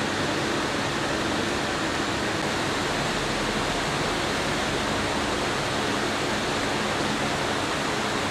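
Steady, even hiss of room tone, with no voices.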